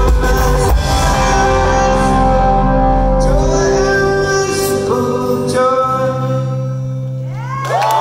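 Alternative rock band playing live in a theater: electric guitar chords and held notes ring out as the drums drop away at the song's close. Just before the end, the audience starts cheering and whooping.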